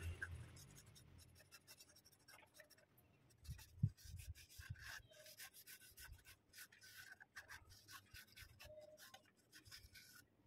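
Faint, irregular scratchy rubbing of a cloth over a turned guava-root piece held on a wood lathe, with a single knock about four seconds in.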